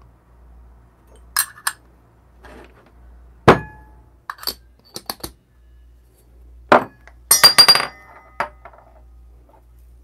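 Metal espresso tools being handled on the bench: a portafilter, dosing cup and ring clinking and knocking. There are scattered light clicks, a sharp knock about three and a half seconds in, and a quick rattle of ringing clinks near eight seconds.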